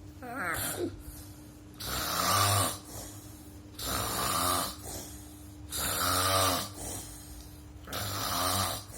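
A man snoring in his sleep: four loud snores about two seconds apart, each followed by a softer breath. A short, wavering pitched snort comes about half a second in.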